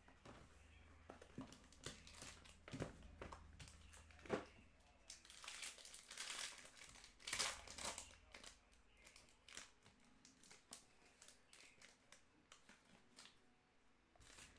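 Faint crinkling of a foil trading-card pack wrapper being handled and torn open, with light clicks and taps from handling the card box. The crinkling is loudest in the middle.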